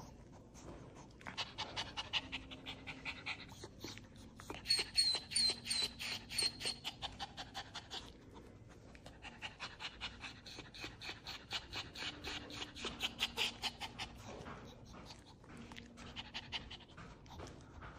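Small Maltese dog panting fast in quick, even breaths, in two long bouts with a short pause a little before the middle, then a few more breaths near the end.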